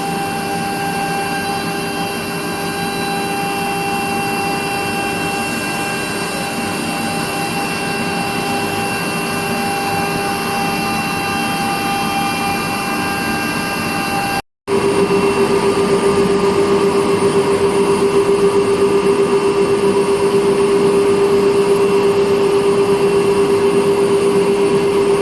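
Steady whine of a 6 kW air-cooled CNC router spindle cutting 20 mm acrylic. The sound cuts out for a moment a little past halfway, then comes back louder, with a stronger steady whine.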